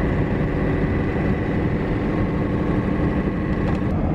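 Four-wheel-drive truck driving steadily on a snowy road, its engine and tyre noise heard from inside the cab.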